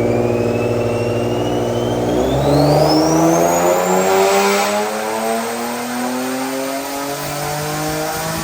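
Turbocharged Infiniti G35 coupe's VQ V6 making a wide-open dyno pull through a Motordyne exhaust: the engine note climbs steadily in pitch while the single mid-mount turbo's spool whine rises steeply over the first few seconds and then holds high.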